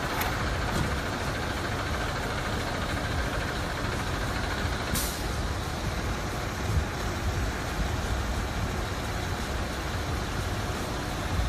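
Steady outdoor street and traffic noise with a low rumble, and a short hiss about five seconds in.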